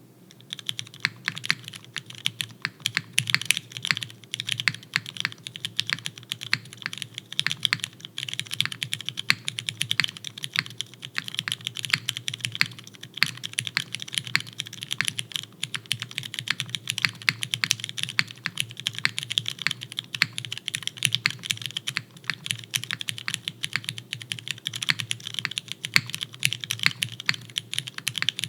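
Continuous fast typing on a custom mechanical keyboard with lubed, filmed retooled Cherry MX Brown tactile switches, a carbon fiber plate, O-ring mount and GMK keycaps: a dense, irregular stream of key clacks.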